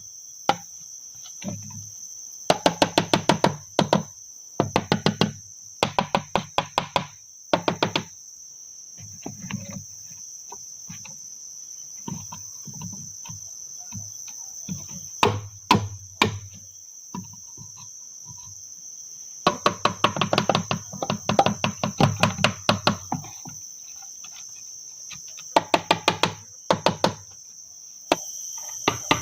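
Bursts of quick chopping strokes, several at a time at about five a second, with pauses between. Under them runs a steady high trill of insects.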